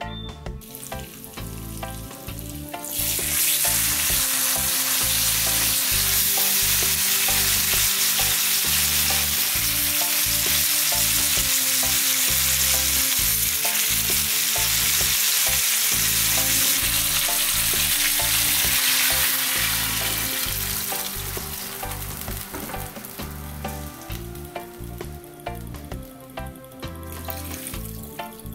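Butter sizzling loudly in a frying pan as whole fish fry in it. The sizzle comes in sharply about three seconds in, holds steady, then dies away over the last third.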